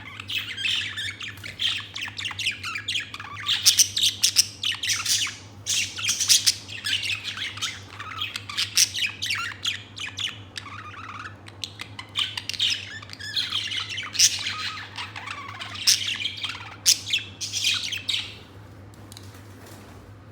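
Budgerigar chattering in a fast, continuous run of chirps and warbles, with sharper squawks mixed in, until it stops about two seconds before the end.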